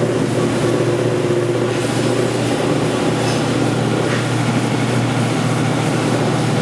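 Motor-driven oil-water separator running: a steady, even mechanical hum with a constant low tone.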